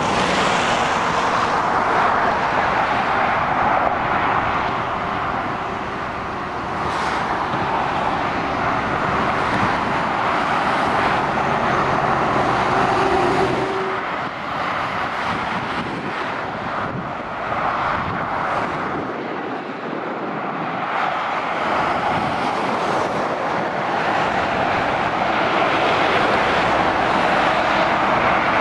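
Motorway traffic: lorries and cars passing, a steady tyre and engine noise that swells and fades as vehicles go by, louder towards the end as a lorry approaches.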